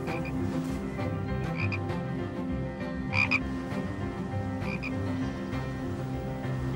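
A chorus of frogs calling steadily, with a sharper call repeating about every second and a half, loudest about three seconds in.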